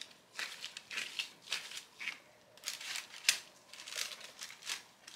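Quiet, intermittent crinkling and rustling of plastic food packaging handled with gloved hands: about eight short, separate crinkles spread through a few seconds.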